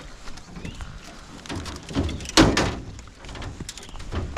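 Small knocks and rattles in a fishing boat, with one loud thump about halfway through.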